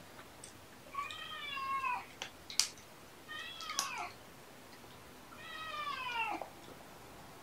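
A cat meowing three times, each meow drawn out for about a second and dropping in pitch at the end. A few sharp clicks fall between the meows.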